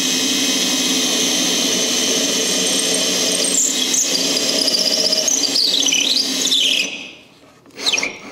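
Handheld power drill boring a quarter-inch hole at an angle through a wooden flange via a clamped guide jig, running steadily. About halfway through, a high squeal wavers up and down in pitch; the drill stops a second before the end, followed by a brief second spin.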